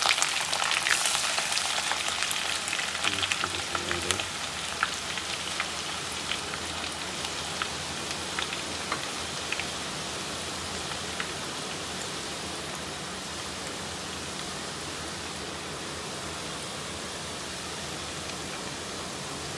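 Chopped garlic and ginger frying in hot mustard oil: a loud sizzle full of crackles and pops at first, easing over the first ten seconds or so into a steady, quieter sizzle as the oil settles around them.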